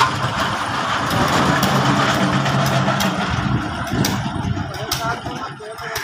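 Construction material hoist's winch running as its skip is lowered down the steel lattice mast. It starts suddenly, runs loud with a steady hum through the middle, and eases off near the end.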